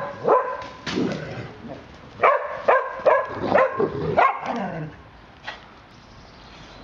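A dog barking in short, high-pitched yaps, two to three a second, in play among other dogs; the barking dies away after about five seconds.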